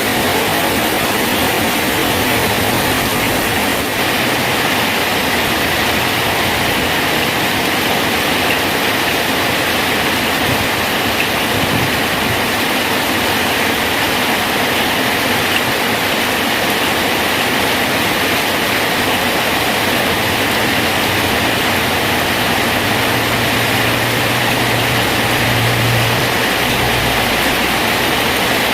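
Steady rain falling on a bridge, a dense even hiss. A low hum comes in about three-quarters of the way through, swells, and fades a few seconds later.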